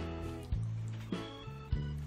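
Background music: a few plucked notes, each struck and then fading.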